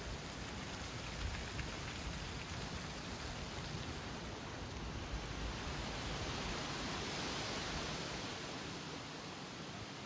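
Wind blowing through autumn trees, with dry leaves rustling in a steady hiss. A gust swells about six seconds in and eases off near the end.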